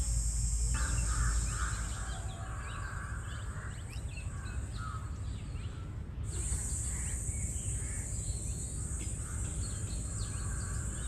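Outdoor birdsong: crows cawing harshly, about a second in and again near the end, among many short chirps of small birds, over a steady high hiss that drops away for a few seconds in the middle.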